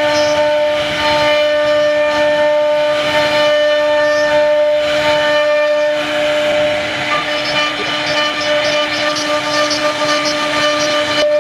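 CNC router spindle running with a steady high whine as its bit cuts a relief pattern into a wooden panel, over a hiss of cutting noise.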